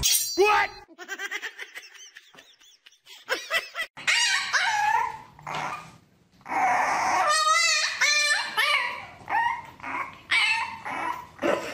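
French bulldog puppy whining and yipping: a run of short high cries, with one longer wavering whine a little past the middle.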